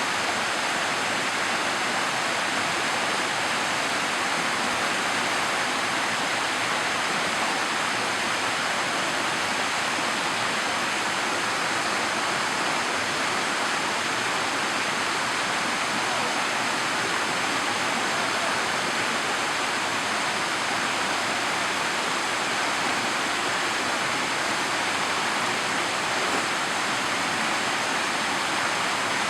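Yukiwa Falls, a slide waterfall, with water rushing down its rock face in a steady, unbroken roar.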